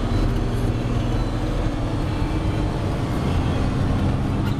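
Steady engine hum and road noise inside a moving vehicle's cabin while driving.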